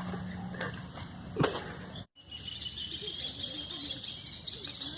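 Quiet outdoor background with a steady high chirring, like insects or birds in the distance; the sound cuts out for an instant about two seconds in, and there is a single sharp click just before that.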